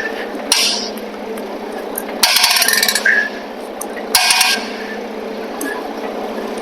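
Forklift engine idling steadily, with two short bursts of rapid clicking about two and four seconds in as the forklift is jacked up.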